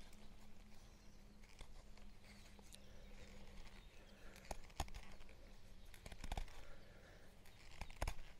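The D2-steel blade of a Solognac Sika 150 bushcraft knife cutting into a dry wooden stick, with scattered crunches and sharp cracks of the wood giving way; the strongest come about halfway and near the end. The blade needs a lot of force to bite, which the user thinks could be improved with a little sharpening.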